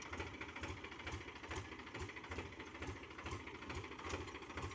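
Tractor's diesel engine idling, a steady low throb at about four beats a second.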